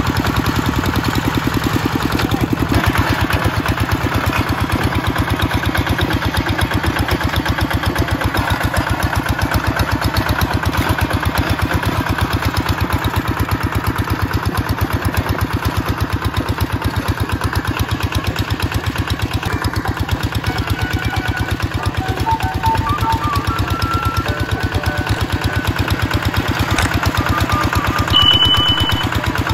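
Small single-cylinder diesel engine of a two-wheel tractor running steadily while under way, a fast even beat of firing strokes.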